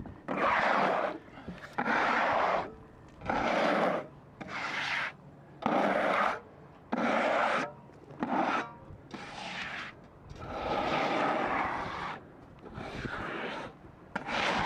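About a dozen rubbing strokes on the sawn face of a figured maple slab, each lasting about a second, with short gaps between them.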